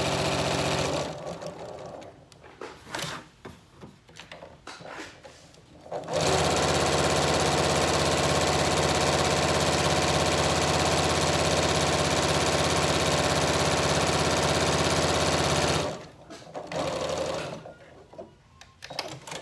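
Janome electric sewing machine stitching a seam through layered cotton fabric. It runs for about a second and stops; after a few seconds of quieter fabric handling it runs steadily again for about ten seconds, then stops, and light handling sounds follow near the end.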